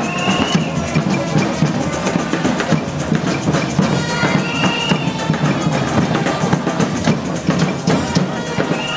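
Drums and percussion playing a busy rhythm, with a short high tone sounding three times, about every four seconds.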